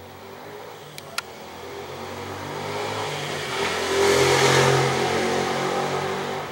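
A motor vehicle passing by, its engine and road noise swelling to a peak about four seconds in and then easing off. Two sharp clicks come about a second in.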